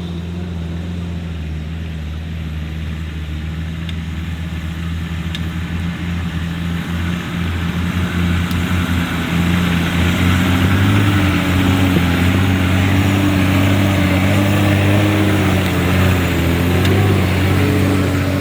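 Off-road 4x4's engine running steadily at low revs, growing louder about halfway through as it comes under load, its pitch wavering up and down.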